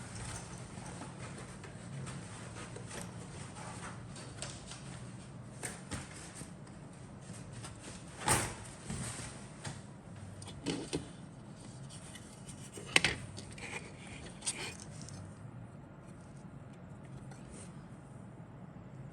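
Handling noises from the parts of a plastic model kit and its box: scattered clicks, light knocks and rustles, with sharper knocks about eight and thirteen seconds in, over a steady low hum.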